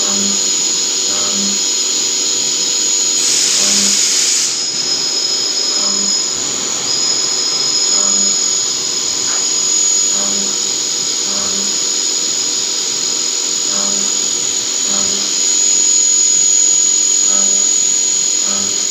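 CNC machine tool running with a steady high-pitched whine, a second high tone coming and going, and a short burst of hiss about three seconds in.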